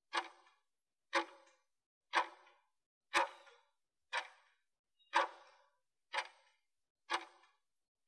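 Countdown ticks from an interval timer, one sharp clock-like tick a second, eight in all, marking the final seconds of the work phase before the break.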